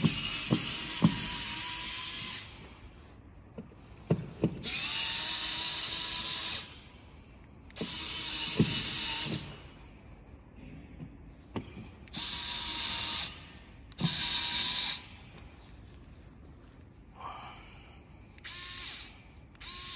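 Wiha electric screwdriver running in five separate bursts of one to two seconds on small screws of a wall light switch, with a faint steady whine and sharp clicks as the bit seats in the screw. Two brief runs follow near the end.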